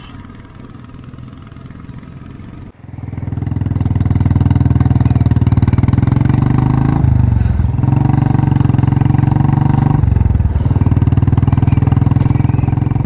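Royal Enfield single-cylinder motorcycle engine running on the move, heard close from the rider's seat. It is fairly quiet at first; about three seconds in it turns suddenly loud and keeps running hard, with two brief dips in pitch and loudness around the middle and two-thirds through.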